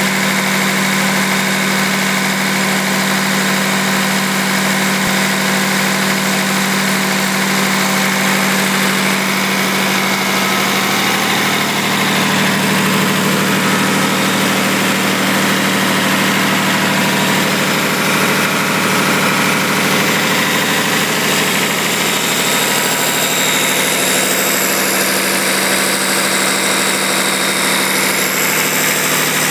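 Lister HR6 six-cylinder diesel engine running steadily at a constant speed, its note unchanging.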